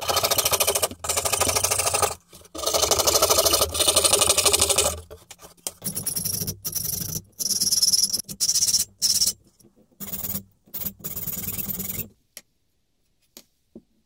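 A fine saw blade cutting through a thin wooden board with a fast, even buzz. About five seconds in it gives way to a file rasping along the edge of a small wooden blank in a vise, in short strokes with brief gaps, which stop about twelve seconds in.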